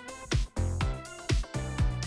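Background music with a steady beat, about two beats a second, over a held bass line.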